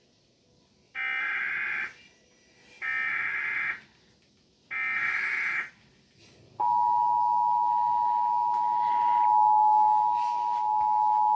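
Emergency Alert System header: three one-second blasts of screeching digital data tones with short gaps between them, then, a little past halfway, the steady two-tone attention signal starts and holds. It announces a National Weather Service flash flood warning.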